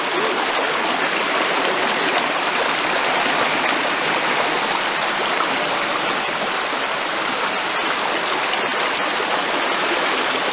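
River water flowing steadily, an even, unbroken rush with no splashes or other events standing out.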